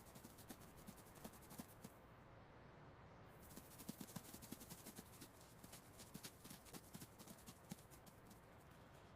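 Faint, rapid, irregular clicking and scratching, several clicks a second, with a brief lull about two seconds in.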